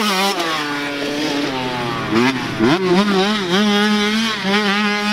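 Motocross dirt bike engine being ridden hard, its pitch rising and falling sharply with throttle and gear changes, then holding fairly steady with small wobbles in the second half.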